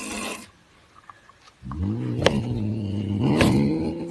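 A cat growling low and steadily while guarding its food, starting a little under two seconds in, after a short hiss that ends about half a second in.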